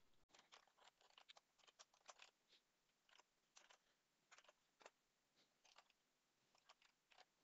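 Near silence with faint, irregular clicks of computer keyboard typing.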